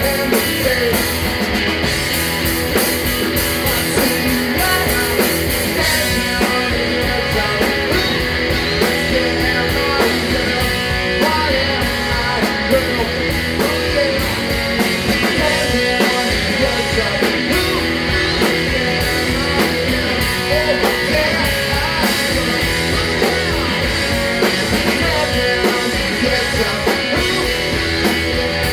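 Live rock band playing loud, with electric guitar, a drum kit and singing.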